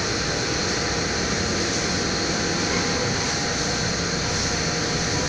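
Lakoni Daytona 100 high-pressure washer running steadily: a constant motor-and-pump hum under the hiss of the water jet spraying a motorcycle.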